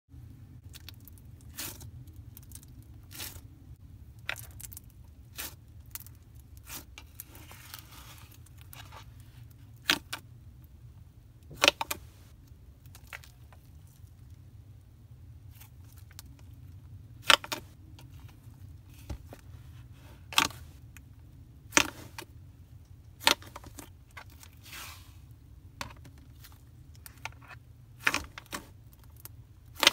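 White base slime in a plastic bowl being stretched and squeezed by hand: sharp, sticky clicks and pops at irregular intervals, a second or two apart, over a steady low hum.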